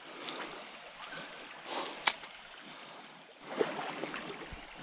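Shallow creek trickling over stones, with footsteps and brushing through grass along the bank. One sharp click about two seconds in.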